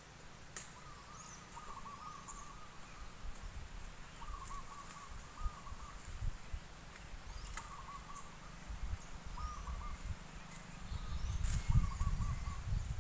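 A bird repeating a short warbling call every second or two, with thin high chirps from other birds and a few sharp clicks. A low rumble grows louder near the end.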